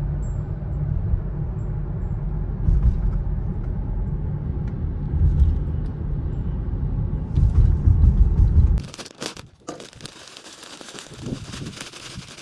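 Steady low road and engine rumble heard inside a moving car's cabin, cutting off about nine seconds in. Then a plastic bag crinkles as it is handled.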